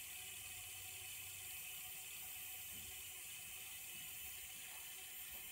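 Small spindle coolant pump running steadily and faintly, drawing antifreeze through clear tubing with a watery trickle as it purges air from the lines.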